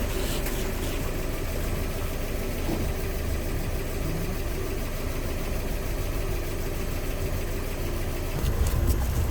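Mazda MX-5's four-cylinder engine idling steadily with no revving, running with engine flush mixed into its old oil before an oil change.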